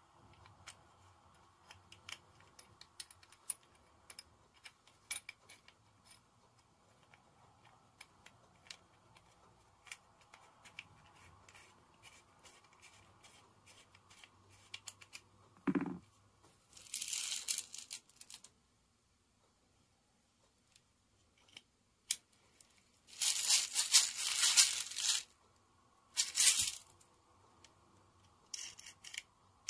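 Small clicks and taps of metal and plastic parts as a Sig Sauer P365 CO2 air pistol is taken apart by hand, including its slide. A few short bursts of harsh noise come in the second half, the loudest lasting about two seconds.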